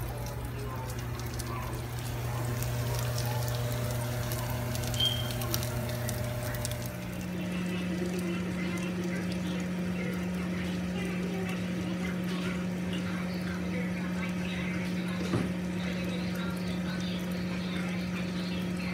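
A steady low hum with faint background noise. About seven seconds in, the hum cuts off and a slightly higher steady hum takes over.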